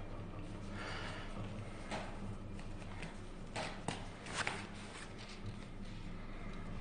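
Rustling and a few light knocks from a handheld phone being carried, over a low steady hum. The loudest knocks come around the middle.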